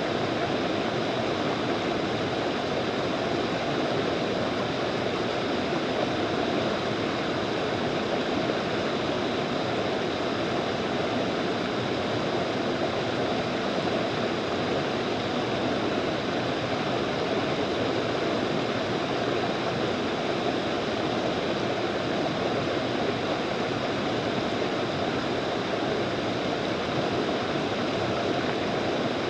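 Fast-flowing mountain stream rushing over rapids, a steady, unbroken roar of water.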